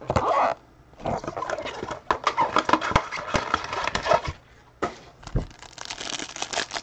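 Plastic wrapping on a pack of trading cards crinkling and tearing as it is opened by hand, a dense run of crackles and rips with two brief pauses.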